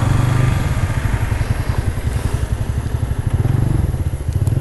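Motorbike engine running at low revs, with a steady, rapidly pulsing low rumble.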